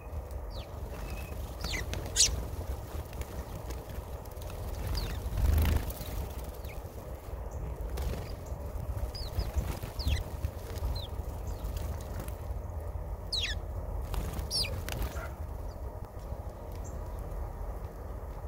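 Small birds at a feeder giving scattered short, high chirps, over a steady low rumble, with a brief louder rush about five and a half seconds in.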